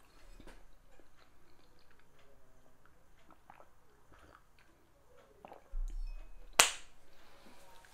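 A person eating a meal of stew and rice by hand: soft chewing and small clicks throughout. A single sharp knock a little before the end.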